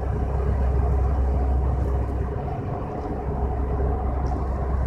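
Steady low engine drone of a passing offshore supply vessel's diesels: a deep, even rumble with a faint constant hum above it.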